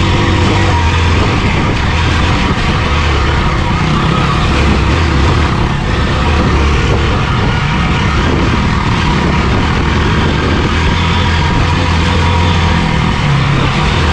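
Motorcycle engine running steadily under load on a trail ride, its pitch shifting a little as it pulls, with heavy wind and road noise over it.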